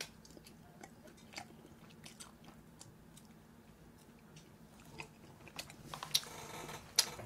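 Close-miked mouth sounds of eating glass noodles from braised chicken: soft wet chewing clicks and smacks as the noodles are sucked in and chewed. The clicks grow busier and louder near the end.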